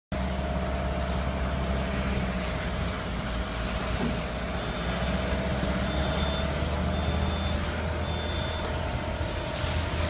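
Mini skid steer loader's engine running steadily, with its reversing alarm beeping about once a second from about halfway through.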